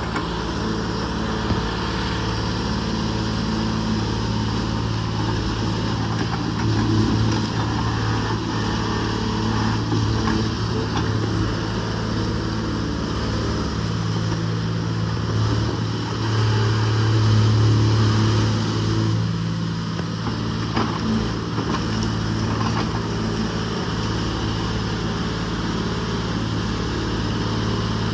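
Case 125B excavator's diesel engine running steadily as the machine works its bucket into a tree stump, with the engine note swelling for a few seconds past the middle.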